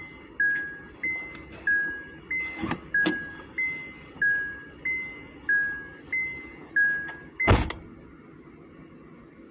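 Car's warning chime, a high-low two-note 'bing-bong' repeating about one and a half times a second, the alert that a door is open with the key in. About seven and a half seconds in, a car door shuts with a loud thump and the chime stops.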